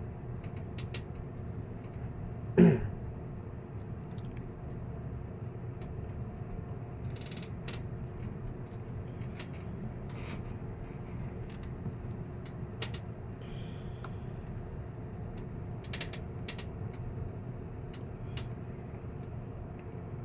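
Steady low background hum with scattered small clicks and taps of fan-motor parts and wires being handled during reassembly. A person clears their throat once, loudly, a couple of seconds in.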